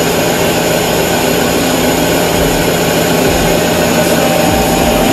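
Electric overhead crane hoist running steadily with a constant hum while it lifts a CNG cylinder assembly.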